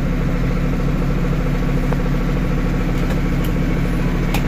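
Steady low machine hum with a faint rapid pulse running through it, like a motor running at a constant speed. A few light clicks come in the second half.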